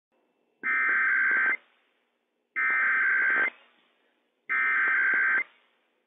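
Emergency Alert System SAME header on NOAA Weather Radio: three bursts of digital data tones, each about a second long, with about a second of silence between them. The header opens the broadcast and carries the Required Weekly Test code.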